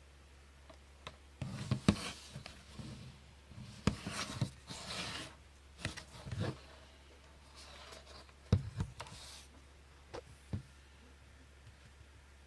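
Handling noises from a retro Spartus 1140 alarm clock being picked over by hand: scattered clicks and knocks with short bursts of rubbing, heaviest in the first half and a few lone clicks later. A low, steady hum runs underneath. The buzzer is not sounding.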